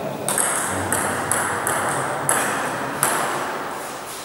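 Table tennis rally: the ball clicking off rubber paddles and the Joola tabletop, about six sharp hits in the first three seconds, each one echoing in a gym hall.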